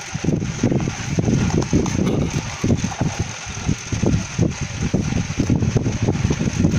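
Wind buffeting the microphone in uneven low gusts, over the faint snipping of scissors cutting a sheet of gasket paper.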